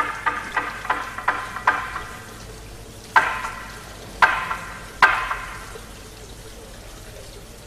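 Struck percussion knocking in a quick run of strikes with a short ringing tone. The strikes slow and fade within the first two seconds, then come three louder single ringing blows about a second apart.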